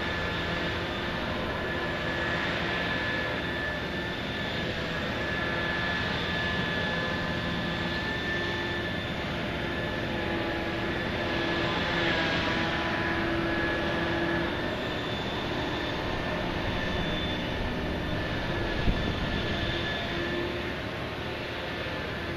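Heavy dredging machinery running steadily: the diesel power plant and hydraulics of a Liebherr P995 backhoe dredger, with a held whine over a constant rumble. One short sharp knock comes near the end.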